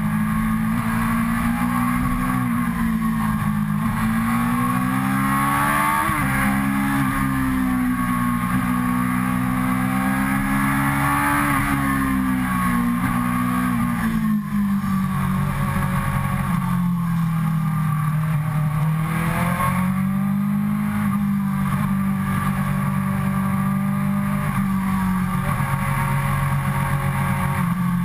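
Suzuki GSX-R sportbike's inline-four engine running under way at cruising revs, its pitch rising and falling gently with the throttle, with wind rushing over the bike-mounted camera.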